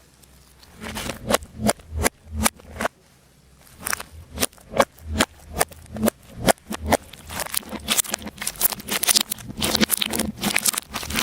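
Slime being worked, giving sharp sticky clicks and pops about twice a second, with a brief lull about three seconds in, then turning into dense crackling over the last few seconds.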